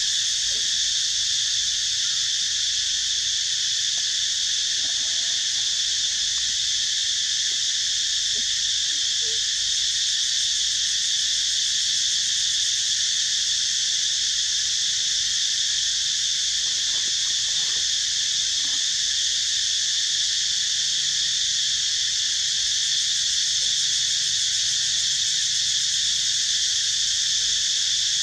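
A loud, steady chorus of insects: a continuous high-pitched buzzing drone that does not let up.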